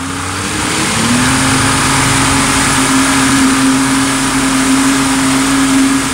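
1994 Force 70 hp two-stroke outboard opened to full throttle, its pitch climbing about a second in and then holding steady, over the rush of the churning wake.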